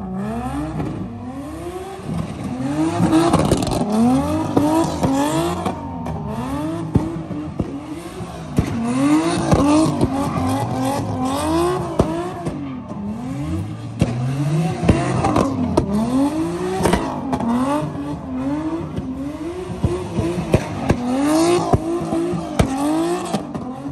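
A car doing donuts: its engine revs rise and fall in pitch over and over as the driver works the throttle, with tyres squealing and spinning on the asphalt.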